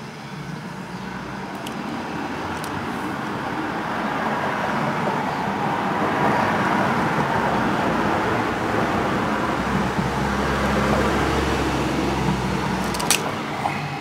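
A vehicle passing by with a low rumble. It slowly grows louder to a peak in the middle and fades near the end, with a few sharp clicks near the end.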